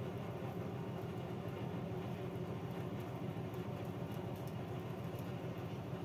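A steady low mechanical hum, even throughout, with a few faint ticks in the middle.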